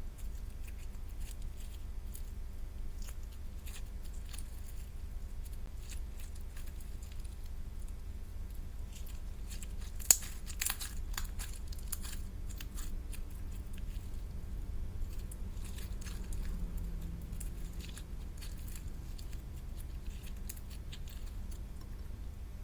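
Small clicks, taps and crinkles from handling slime-making materials and their packaging, over a steady low hum; one sharper click about ten seconds in.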